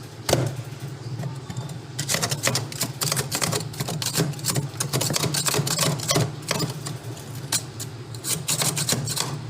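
Rapid, irregular clicking, knocking and scraping of hand work cleaning packed ice out of a refrigerator's freezer compartment, with a single sharp knock near the start.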